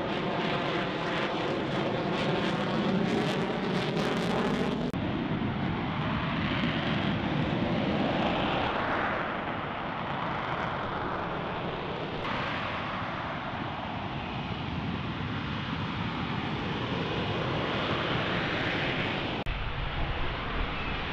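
Lockheed Martin F-35B's F135 jet engine running loud: first a pass overhead, heard as a rushing sound with a sliding, phasing sweep. Then comes the steady roar of the jet hovering in short-takeoff/vertical-landing mode with its lift fan engaged. The sound changes abruptly about five and twelve seconds in and near the end.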